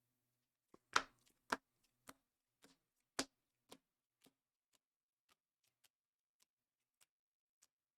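A regular series of sharp clicks or taps, a little under two a second, starting about a second in. The first few are loud and the rest grow fainter.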